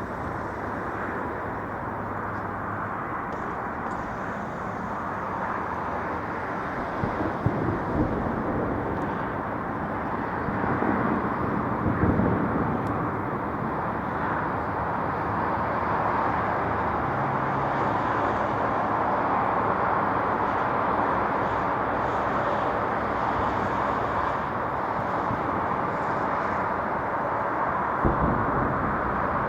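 Distant fireworks salute: a few dull thuds of bursts, about 7 to 8 seconds in, around 12 seconds and near the end, over a steady outdoor rumble of wind and city noise.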